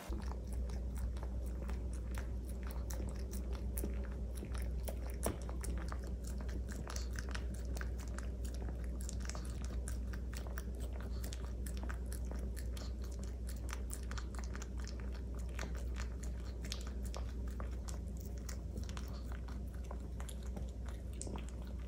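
A Pomeranian licking peanut butter off a plastic zip-lock bag laid over a wet canvas, making a continuous run of small, quick, wet licking clicks. A steady low hum runs underneath.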